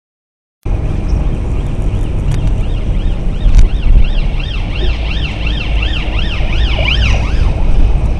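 Emergency vehicle siren on a fast yelp, rising and falling about three times a second, over heavy low road and wind rumble on a dash camera's microphone. It starts abruptly about half a second in.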